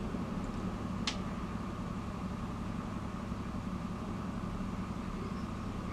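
Steady low mechanical hum of a running machine in the room, with one short sharp click about a second in.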